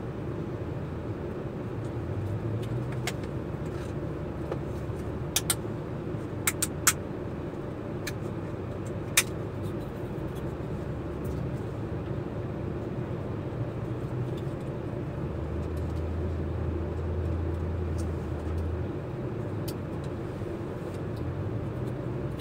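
Steady low drone of an idling vehicle engine heard inside the cab, swelling slightly for a few seconds past the middle. A few sharp clicks come between about five and nine seconds in, from food packaging being handled.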